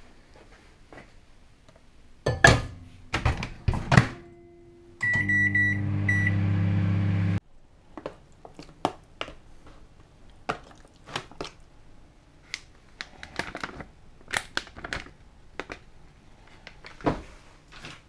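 Kitchen food-prep clatter of knocks and clicks, with a microwave oven humming steadily for about two seconds, a few short beeps from its buttons near the start, before it cuts off suddenly.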